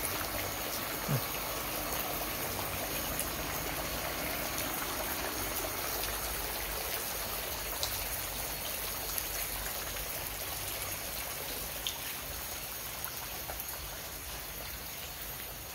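Water running and trickling in an aquaponic system, a steady rushing that eases slightly toward the end.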